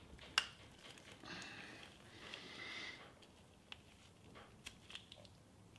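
Quiet hand work with a screwdriver on a motorcycle frame fitting: a sharp click about half a second in, a soft hiss lasting about two seconds, then a few faint ticks and taps.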